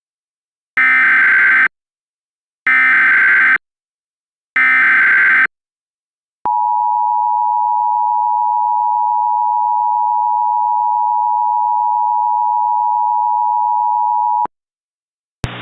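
Emergency Alert System tones: three short, raspy bursts of SAME header data, then the steady two-tone EAS attention signal held for about eight seconds. Together they mark the start of a new emergency alert broadcast.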